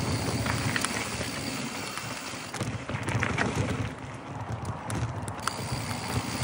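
Mountain bike rolling fast down a dry dirt trail: a steady rumble of knobby tyres on dirt and gravel, with the bike rattling and clattering over bumps, most densely about three seconds in.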